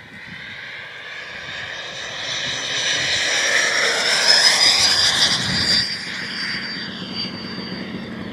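HSD F-16 radio-controlled jet's electric ducted fan whining as it makes a fast pass: the sound swells to its loudest about four to five seconds in, then fades as the pitch of the whine drops while it flies away.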